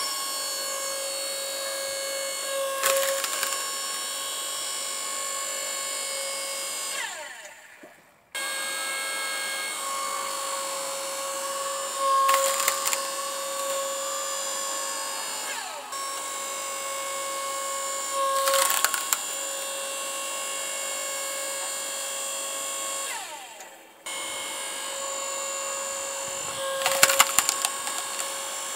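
Timco LS6T 52 electric hydraulic log splitter running with a steady whine while its ram forces a log onto the wedge. The wood cracks and splits loudly about four times. Twice the motor winds down to a stop and then starts again abruptly.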